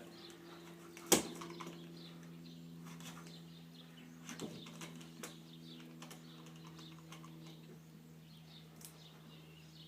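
Spline roller tool working rubber spline down into a window screen frame's channel, making faint scattered clicks and rustles. There is one sharp click about a second in, all over a steady low hum.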